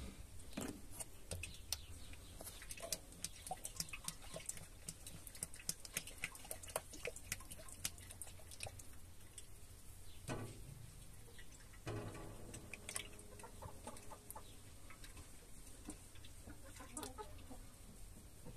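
Transmission and hydraulic oil glugging irregularly from a plastic jerrycan into the gearbox filler of an IMT tractor, with hens clucking nearby.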